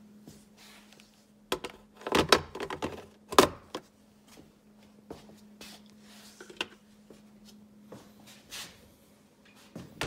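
Hard plastic knocks and clicks as a rechargeable handheld vacuum is handled and set back onto its wall mount, with a cluster of knocks about two to three and a half seconds in and a few lighter clicks after. A faint steady hum runs underneath.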